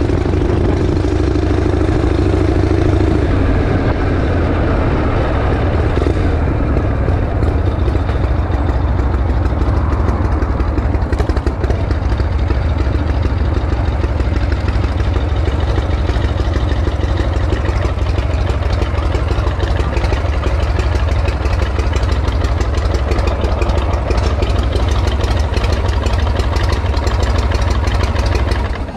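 Harley-Davidson Shovelhead V-twin engine, in its break-in period, running steadily with a deep, low exhaust beat.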